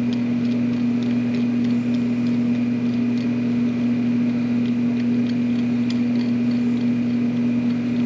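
A steady machine hum with a constant low tone, like an electric motor running, with a few faint light ticks.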